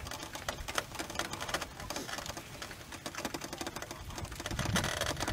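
Slow-moving lava flow crackling and clinking, with irregular sharp ticks as its cooling crust breaks up. A low rumble builds near the end.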